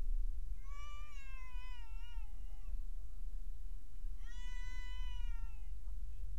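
A cat meowing twice in long, drawn-out calls, the first wavering and falling in pitch, the second held steadier, over the steady low rumble of a car's engine and road noise inside the cabin.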